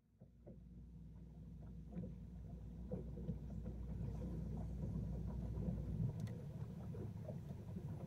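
Water lapping against the tubes of a pontoon boat, a low rumbling wash with small scattered knocks, under a deeper wind rumble on the microphone that drops away about six seconds in.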